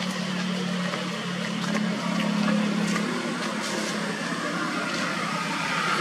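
An engine running steadily, with a low hum that is strongest over the first few seconds, and a few faint clicks.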